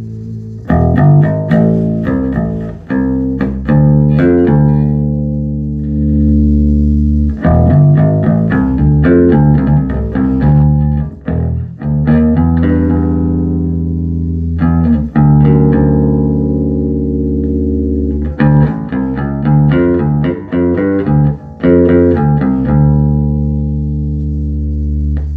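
Electric bass guitar played through a 1974 Ampeg B-15N tube bass amplifier, freshly recapped: phrases of plucked notes, some left to ring, with short pauses between phrases.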